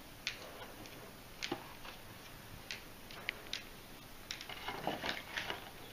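Irregular sharp clicks and taps from an Amazon parrot's claws on a hard tabletop and its beak working at a cardboard box and its string, with a quicker run of taps in the second half.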